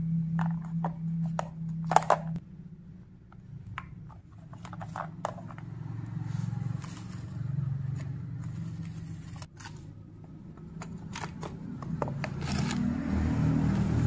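Small plastic clicks and scrapes as a USB charging cable is plugged into a homemade PVC-pipe power bank and a phone is handled on its stand. The loudest click comes about two seconds in, over a steady low hum.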